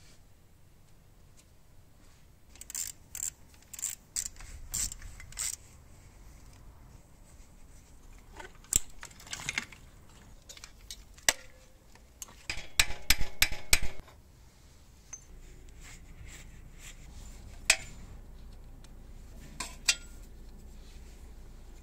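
Metal clinks and taps of hand tools and loose parts while an old Ural motorcycle is dismantled: a run of six sharp clicks early, a scrape, then a fast metallic rattling for about a second and a half a little past halfway, and a few more single clinks near the end.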